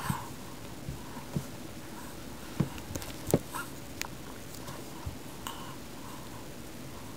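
Quiet room tone: a steady hiss with a few scattered light clicks and taps, irregularly spaced.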